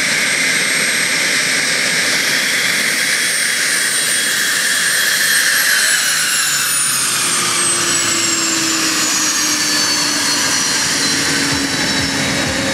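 Cessna Citation V's twin Pratt & Whitney Canada JT15D turbofans running at taxi power, a steady loud rushing hiss with a high whine. From about halfway through, the whine falls steadily in pitch as the jet passes and turns away.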